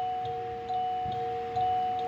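Alarm clock's built-in sleep-sound speaker playing a slow, simple electronic tune of clean, sustained chime-like tones, two notes overlapping, with a new note about every half second.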